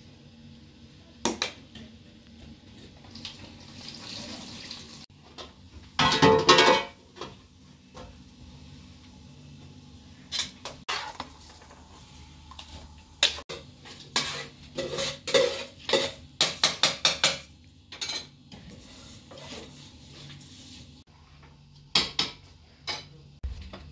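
Pots, dishes and metal cutlery clinking and clattering in irregular knocks, with a louder clatter about six seconds in and a quick run of clinks about two-thirds of the way through.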